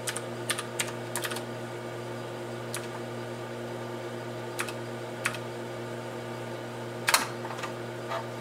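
Scattered keystrokes on a computer keyboard, single clicks a second or more apart with the sharpest about seven seconds in, over a steady low hum.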